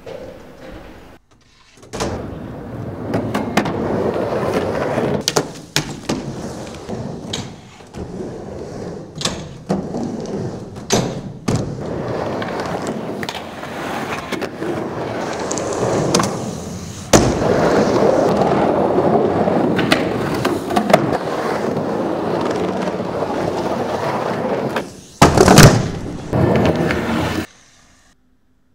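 Skateboard wheels rolling on the concrete of a skate bowl, the rolling noise rising and falling as the board carves, with repeated sharp clacks of the board and trucks hitting the coping and landing. A burst of loud impacts comes near the end, and then the sound stops abruptly.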